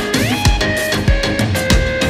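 Background music with a drum kit keeping a steady beat, about two bass-drum strokes a second, under held pitched notes, one of which slides upward near the start.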